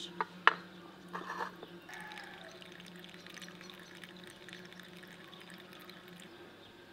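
A stone weight set down on a plate pressing cheese curds in a metal strainer: a couple of sharp knocks and a short clatter in the first second and a half, then whey faintly trickling and dripping into a plastic bowl over a steady low hum.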